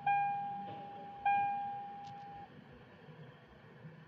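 Lexus RX300's warning chime dinging in a repeating series: a bell-like ding at the start and another about a second later, each fading away, the series stopping about two and a half seconds in.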